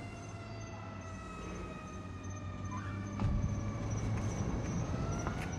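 Police siren wailing slowly, its pitch falling and then rising again near the end, with a low rumble joining about halfway through.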